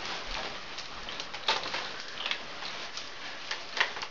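Rustling of camouflage clothing and a loaded tactical vest with irregular light clicks and knocks of gear and an airsoft rifle as a person steps into place, with a few sharper knocks about a second and a half in and near the end.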